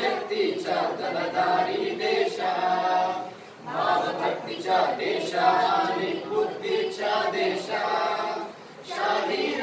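A small group of men and women singing a song together without accompaniment, in long phrases with two brief pauses for breath.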